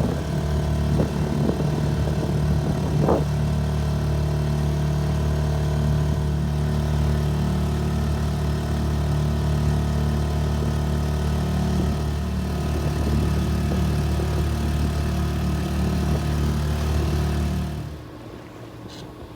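Sailboat's engine running at a steady speed, a low even drone, with a few knocks in the first few seconds. The drone drops away abruptly near the end.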